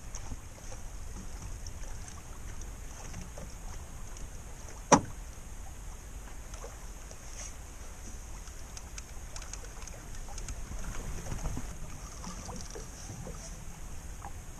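Water lapping against a small boat's hull over a steady low rumble, with scattered faint ticks. A single sharp knock about five seconds in is the loudest sound.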